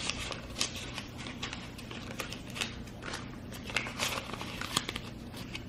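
Paper rustling and crinkling in irregular short crackles as a capuchin monkey picks at a greeting card and envelope with its hands.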